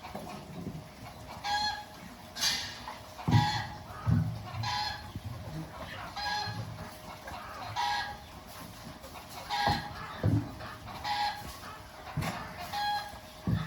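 Chicken calling over and over, a short pitched cluck about every second and a half, with a few low thuds in between.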